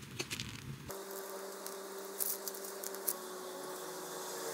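Quiet food-preparation sounds: a piping bag squeezing out whipped cream in soft squishes and clicks for about a second, then an abrupt change to a steady low hum with a few light ticks and taps while cocoa powder is dusted over a layered dessert cup.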